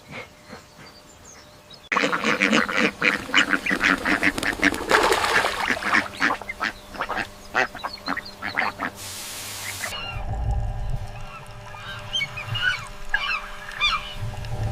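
A flock of waterfowl calling: a dense run of rapid, overlapping honking and quacking starts about two seconds in and goes on until about two-thirds of the way through. It then gives way to scattered short, high chirps over a low rumble.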